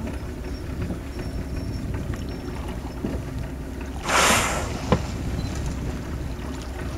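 Humpback whale blowing once at the surface: a short, loud rush of breath about four seconds in, over a steady low rumble. A single sharp knock follows just under a second later.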